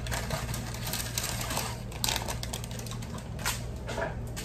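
Parchment paper being pulled from its box and laid out, crinkling and rustling, with scattered sharp crackles.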